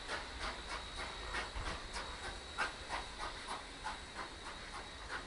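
Steam locomotive exhausting in quick, regular chuffs, about four a second, over a steady hiss of steam, heard from across the yard.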